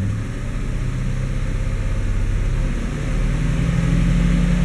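GM 5.3-litre V8 engine running at raised revs, its pitch stepping up about three seconds in and holding higher. It is being revved to circulate engine oil dosed with automatic transmission fluid, added to quiet a lifter tick.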